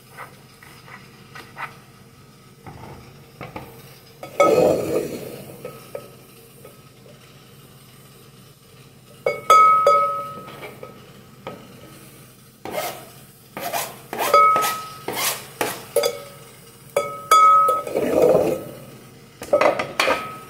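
A kitchen knife tapping on a plastic cutting board as lettuce is chopped, then chopped lettuce being scraped off the board into a glass bowl. There are rough scraping sounds and a long run of sharp knocks and clinks, several of them ringing briefly.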